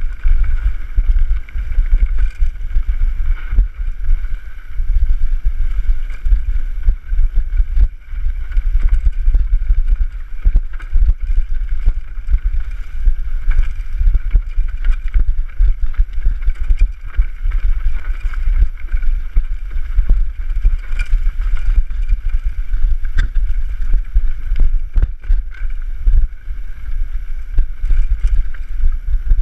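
Wind buffeting the camera microphone as a mountain bike descends a rough dirt trail, with frequent clatter and knocks from the bike jolting over bumps and the tyres running on dirt.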